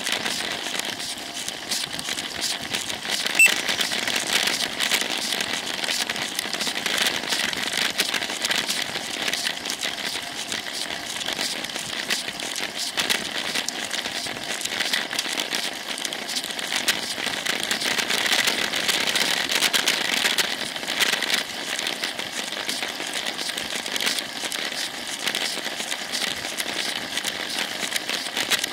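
Steady crackling rustle of wind and road vibration picked up by a Cycliq rear-facing camera on a moving road bike, with one sharp click about three and a half seconds in.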